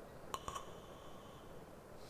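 A pause between sleeping breaths: a steady soft hiss of rain ambience, with a few small clicks about half a second in, each leaving a brief ringing tone.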